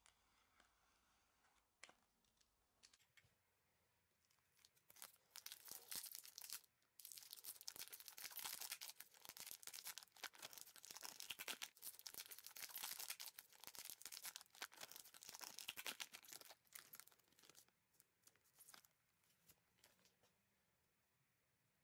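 Foil trading-card pack being torn open and crinkled by hand: a crackly tearing and rustling that starts about five seconds in and runs for about twelve seconds, then fades to a few faint clicks and rustles.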